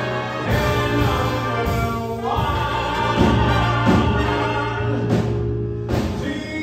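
Live big band of saxophones, trumpets, trombones, upright bass and drums playing sustained chords behind a male singer, with the harmony shifting a little over two seconds in.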